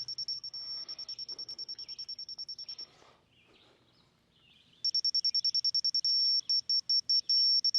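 Laser level receiver beeping rapidly in one high tone, about eight beeps a second. It falls silent for about two seconds, then resumes, and a few seconds in it breaks into stretches of steady tone, the receiver's sign that it is close to the beam's on-grade mark.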